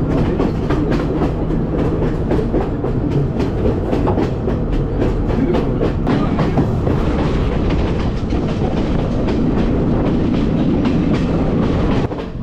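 Passenger train running along the track: a steady low rumble of the carriage with rapid, irregular clacking of the wheels over the rails.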